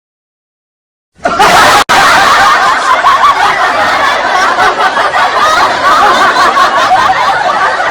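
Silence for about a second, then continuous laughter starts suddenly and carries on.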